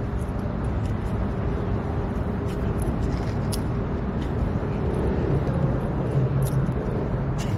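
Steady low rumbling outdoor background noise, with a few faint clicks.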